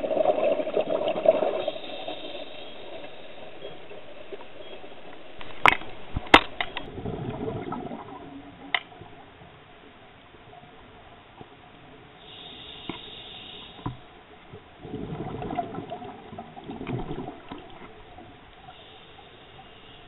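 Scuba diver's breathing heard underwater: exhaled bubbles rushing out of the regulator in three bursts several seconds apart, with a short hiss between them. A few sharp clicks come about six seconds in.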